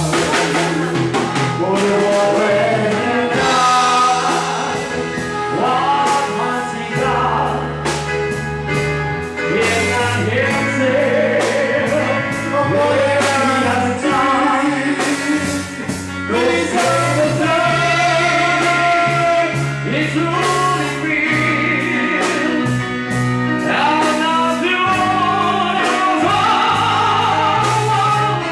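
Live band playing a song: several voices singing into microphones over electric bass and a drum kit keeping a steady beat.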